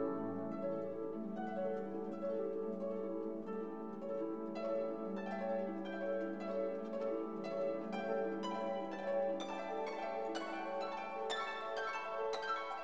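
Instrumental background music: a held low note under a run of plucked notes that come quicker and brighter from about the middle on.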